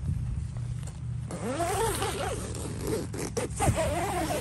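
A tent zipper being pulled in two or three strokes, starting about a second in, with a scratchy sound that swoops up and down in pitch. A steady low hum runs underneath.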